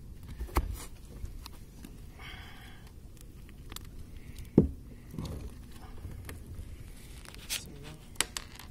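Scattered knocks, scrapes and sharp clicks from a landed fish and fishing gear being handled on a small boat's deck, with one loud thump about four and a half seconds in.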